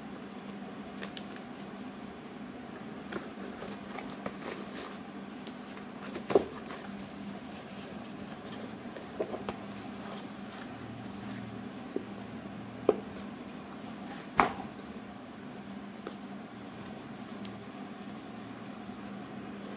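Cardboard shipping box, packing and paper handled by hand: a few short knocks and taps, the loudest about six and fourteen seconds in, over a steady hum.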